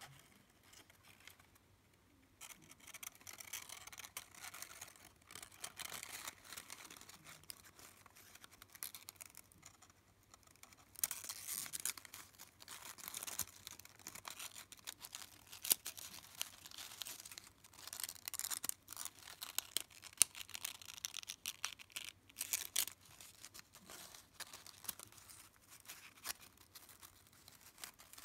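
Quiet rustling and crinkling of folded origami paper, with small scraping clicks, as two paper units are handled and slid into each other. It comes in bouts, busiest in the middle stretch.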